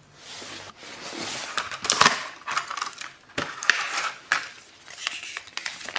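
Retail packaging of a garage door remote being opened by hand: crinkling and rustling with many sharp clicks and snaps, loudest about two seconds in.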